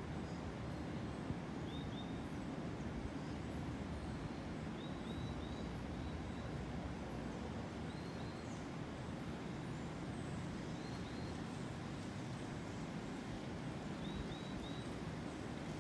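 Coastal tropical forest ambience: a steady low rush, with a bird giving short high chirps in groups of two or three every few seconds.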